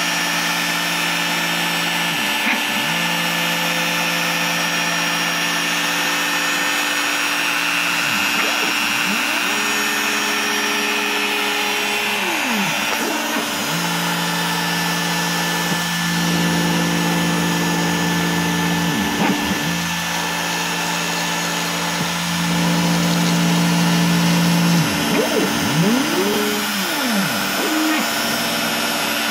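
Bosch Colt trim router running steadily as its 1/32-inch single-flute bit cuts foam board on an OX CNC, with the machine's stepper motors whirring in pitch sweeps that rise and fall as the gantry speeds up and slows down.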